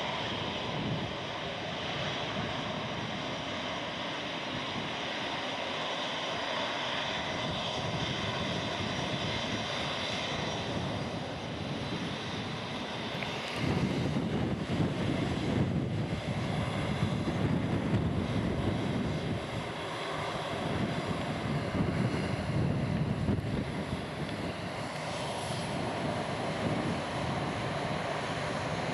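Jet airliner engines running with a steady roar and faint whine. From about 13 seconds in, a louder, gusty low rumble comes in, typical of strong typhoon wind buffeting the microphone.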